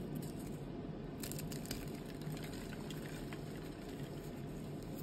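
A block of reformed gym chalk being crushed in the hand. It crunches and crackles as it crumbles into powder. The crackling starts about a second in and is densest soon after, then thins out, over a steady low hum.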